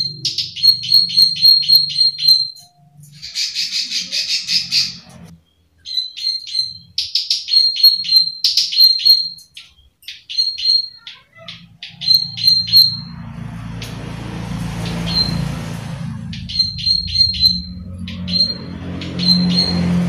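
Plain prinia (prenjak sawah) calling in runs of sharp 'klik' notes, several a second, broken by a short harsh buzzing phrase about three seconds in. From about twelve seconds in a low rumble and hiss run under the calls.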